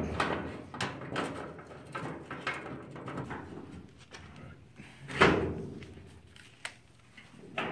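Light metal clicks and knocks of tailgate hinge hardware being handled against the Bronco's bare steel body, with one louder knock about five seconds in.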